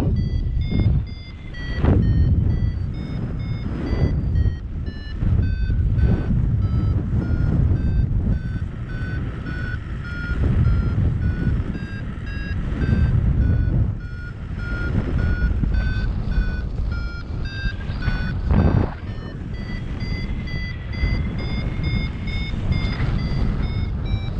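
Paragliding variometer beeping in quick repeated pips, its pitch dipping in the middle and rising again near the end as the climb rate changes; the beeping signals the glider is climbing in lift. Wind buffets the microphone underneath.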